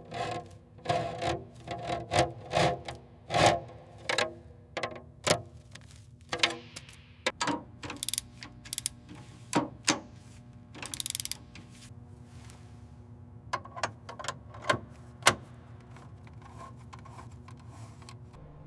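A run of irregular mechanical clicks and knocks, closely spaced at first and sparser later, over a faint steady hum.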